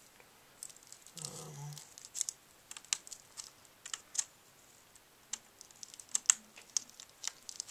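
Scattered light clicks and taps of a laptop display cable and its connector being handled and plugged into a replacement LCD panel, irregular and without a steady rhythm.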